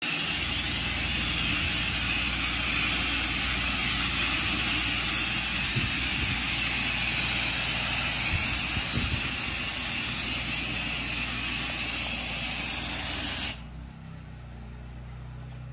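Pressure washer wand spraying a high-pressure jet onto limestone paving: a loud, steady hiss, with the machine humming low underneath. The spray cuts off suddenly about thirteen and a half seconds in, leaving only the low hum.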